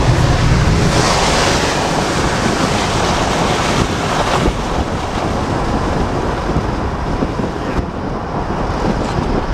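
Wind buffeting the microphone of a camera filming from a moving car, over a steady rush of tyre noise on wet pavement.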